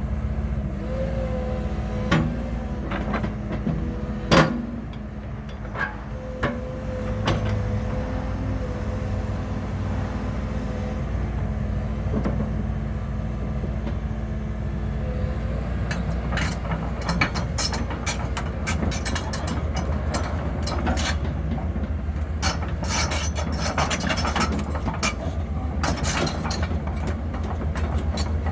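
2014 Caterpillar 312E excavator running with a steady diesel hum and a held whine above it, with a few sharp knocks in the first several seconds. From about halfway through, rapid metallic clanking and squeaking from the machine joins in.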